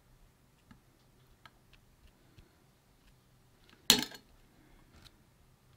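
Light scattered ticks and taps from working shisha tobacco into a bowl carved from an apple, with one sharp click just before four seconds in and a fainter one about a second later.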